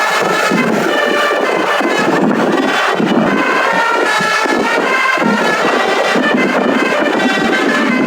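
Bus telolet horn, a Basuri multi-trumpet musical air horn, playing a continuous tune of stepped notes that change about every half second, over a steady rushing noise.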